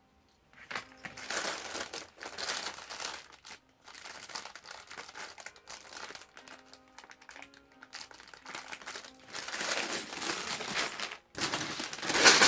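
Plastic Lego parts bags crinkling as they are handled, in several bursts, loudest near the end. Soft background music plays underneath.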